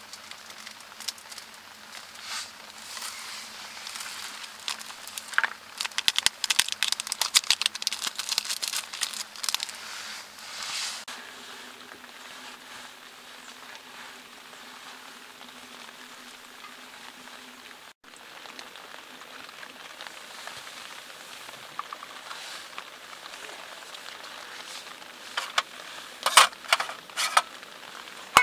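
Crinkling and irregular crackling clicks, densest in the first half, over a steady hiss. A steady low hum runs for several seconds in the middle, and a few sharp clicks come near the end.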